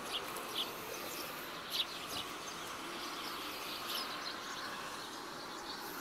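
Eurasian tree sparrows giving short, scattered chirps over the steady hiss of typhoon rain.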